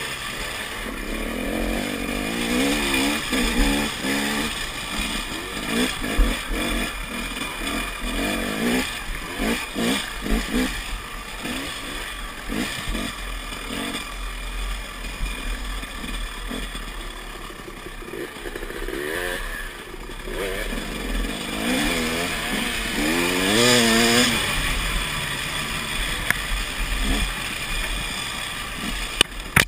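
KTM dirt bike engine being ridden hard, its revs rising and falling again and again, climbing highest and loudest about three-quarters of the way through. A few sharp knocks come through over the engine.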